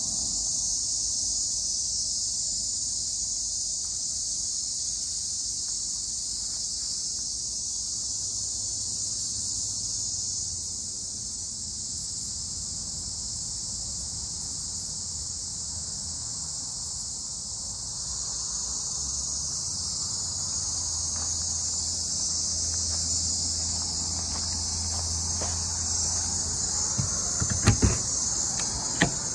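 A steady, high-pitched insect chorus that runs without a break. A low hum comes in during the second half, and two sharp knocks sound near the end.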